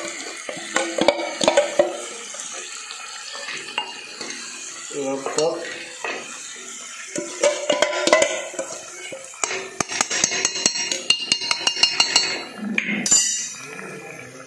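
A metal spoon clinking, scraping and knocking against steel cookware while gravy is added to the chicken in the pot. The rapid clicks come thickest in the second half.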